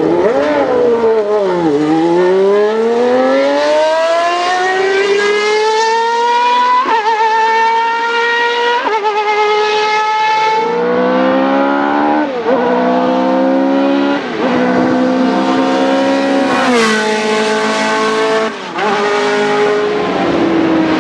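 Ferrari Formula 1 car's 3.5-litre V12 at high revs: a quick drop in pitch, then a long rising pull broken by upshifts as it accelerates away. In the second half, more high-revving Formula 1 engine sound with rapid gear changes, the pitch falling and climbing again several times.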